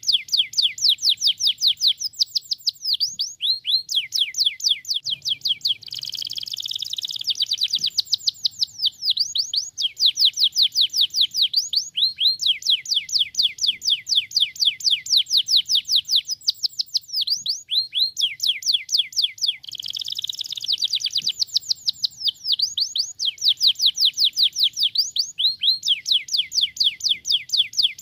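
Canary singing: long trills of quickly repeated sweeping notes, about seven a second, twice broken by a denser, harsher rolling phrase.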